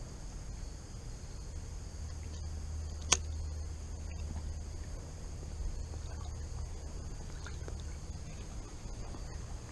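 Creekside ambience: a steady high buzz of insects over a low rumble, with one sharp click about three seconds in.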